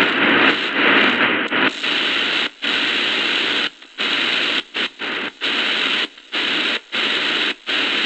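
Shortwave static and hiss from the Prunus J-160 radio's speaker as it is tuned across the band, cutting out for a moment again and again as the tuner mutes at each step.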